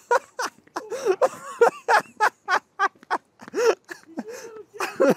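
A flock of birds calling: many short, harsh calls overlapping, several a second.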